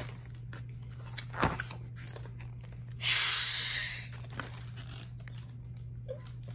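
Large hardcover picture book being handled and its pages turned: a soft knock about a second and a half in, then a loud paper swish lasting about a second.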